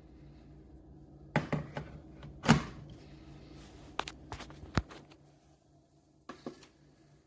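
A series of short knocks and clicks, the loudest about a second and a half in, with a few more around three to three and a half seconds and near the end, over a faint steady hum.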